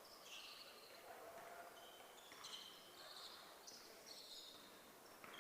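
Faint, scattered high-pitched squeaks of basketball shoes on a hardwood court, over quiet gym ambience.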